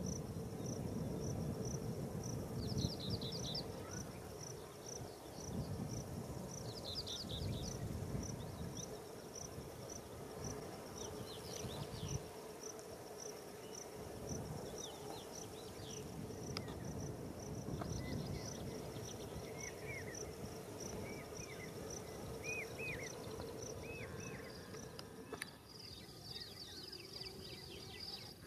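An insect chirping in a steady high pulse, about two chirps a second, with short bird calls now and then and a low uneven rumble underneath.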